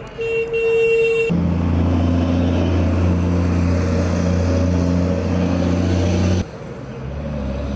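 A held horn tone with short breaks stops abruptly about a second in. A heavy vehicle's engine then runs with a loud low hum, and near the end it cuts abruptly to the lower hum of another vehicle engine.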